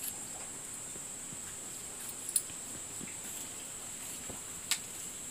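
Quiet background hiss with a steady high-pitched whine and three soft clicks or taps, near the start, in the middle and near the end.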